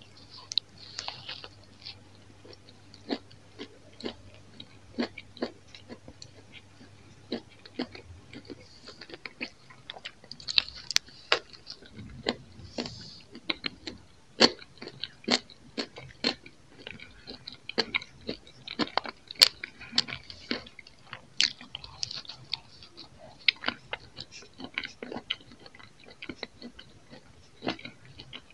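Close-miked eating: bites and chewing of crispy toasted rumi-cheese bread, with sharp crunchy crackles roughly one to two a second that grow denser partway through.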